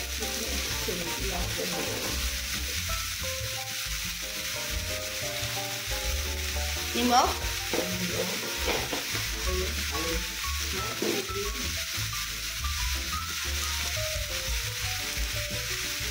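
Leafy greens sizzling in hot oil in a kadai as they are stirred, a steady frying hiss throughout. A short rising sound stands out about seven seconds in.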